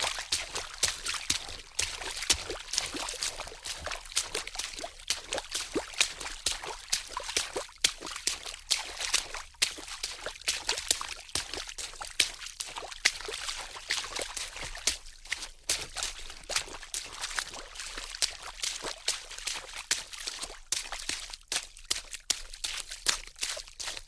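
Water splashing continuously, a quick irregular run of small splashes and sloshes.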